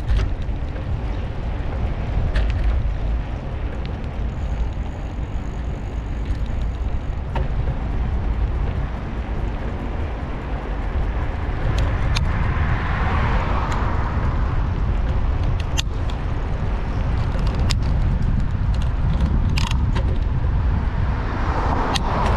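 Steady wind rushing over the microphone of a moving bicycle, with city traffic noise underneath and a few sharp clicks in the second half.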